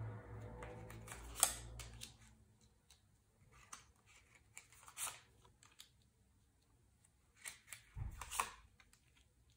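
Tarot cards being drawn off the deck and laid down on a table: a few crisp snaps and slides of card stock. The loudest come about one and a half seconds in and near the end.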